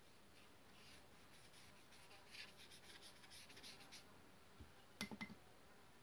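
Faint scratching of ink strokes being drawn across newspaper paper, mostly in the middle seconds. A quick cluster of taps about five seconds in is the loudest sound.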